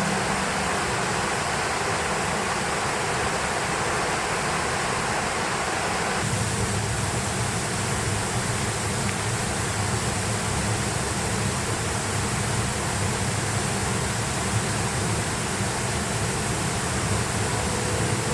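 Steady rushing of flowing water, a stream or small waterfall. The sound changes abruptly about six seconds in, then carries on evenly.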